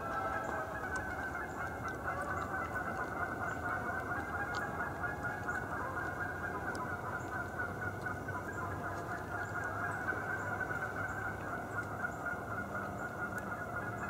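A flock of Canada geese honking, a steady racket of many overlapping calls.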